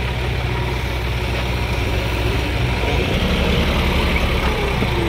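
Diesel tractor engines running at idle, a steady low throb that grows slightly louder in the second half.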